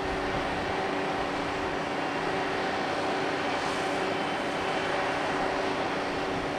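Steady drone of large ship machinery, a constant hum with a few held tones and no change in level.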